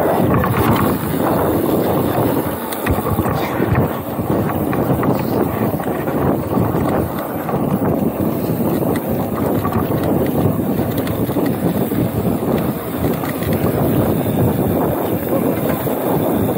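Wind rushing over a chest-mounted action camera's microphone during a fast mountain-bike descent, mixed with the steady rumble of the bike's tyres rolling over a dirt and gravel track.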